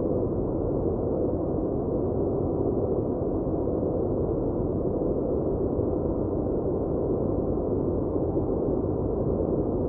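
Steady white-noise track: a deep, even hiss that stays constant throughout, with little or no high end.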